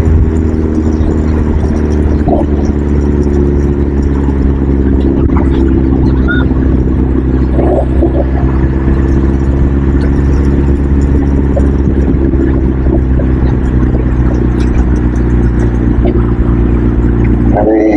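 Motor vehicle engine running steadily at an even speed, with a low, unchanging hum.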